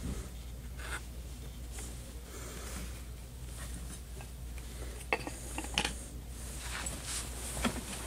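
Handling noise: hands rubbing and shifting a handheld decibel meter, with soft scraping and a few light clicks and knocks in the second half, over a steady low hum.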